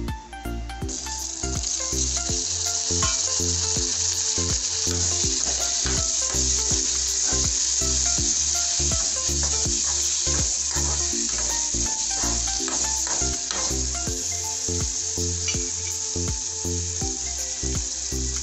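Chopped tomatoes and onions sizzling in hot oil in a metal kadai, the sizzle starting suddenly about a second in and running on steadily, with the clicks and scrapes of a spoon stirring against the pan.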